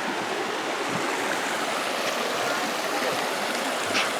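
Steady rushing of a waterfall's falling water, heard close to the falls.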